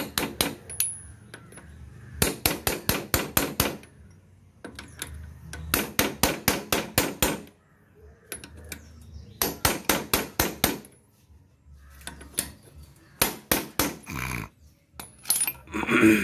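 Hammer blows on the front wheel bearing race of a Bajaj Chetak scooter, in quick runs of about six strikes a second, with short pauses between the runs.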